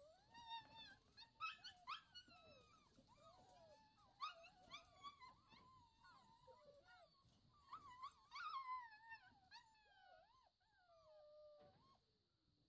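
Seven-week-old Brittany puppies whining and yelping in high, sliding cries that come in bursts with short pauses, several overlapping at times. Toward the end comes one long, falling whine.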